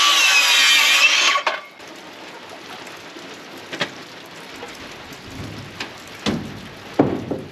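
Circular saw running through a board, its motor whine dropping in pitch under load and cutting off about a second and a half in. Then steady rain, with a few sharp wooden knocks.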